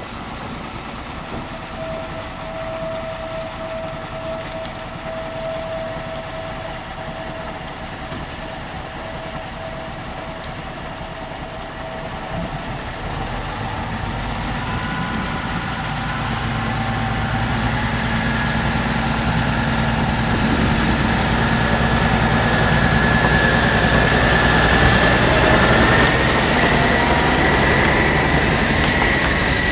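MÁV Mk48 diesel-hydraulic narrow-gauge locomotive approaching slowly and passing with one carriage. Its engine hum grows louder through the second half, and a high whine edges up in pitch as it draws near.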